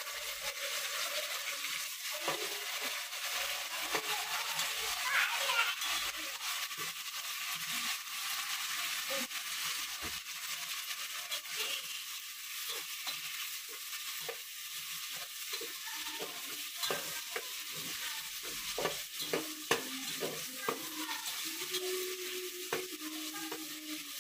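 Onions and chopped tomatoes sizzling in hot oil in a metal pot, with a steady frying hiss. A metal spatula scrapes and taps against the pot again and again as the mixture is stirred.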